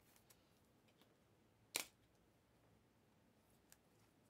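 Faint handling of foil trading-card packs and cards, with a few light ticks and one short sharp click a little under two seconds in.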